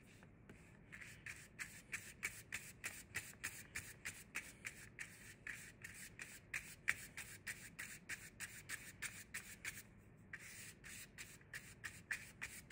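Wide flat paintbrush scrubbing paint onto paper in quick back-and-forth strokes, about three a second, faint and scratchy, with a short pause about ten seconds in.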